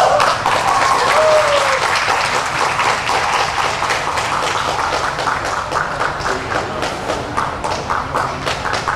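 Crowd of spectators applauding, with a couple of brief shouts in the first second or two. The clapping thins toward the end into more separate, evenly spaced claps.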